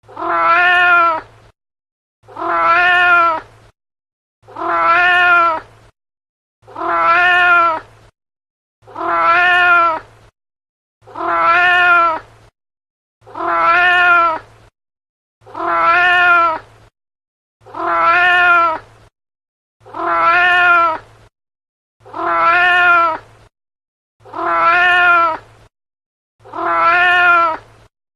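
Domestic cat meowing, the same meow repeated over and over: about thirteen identical calls, each about a second and a half long, one every two seconds or so.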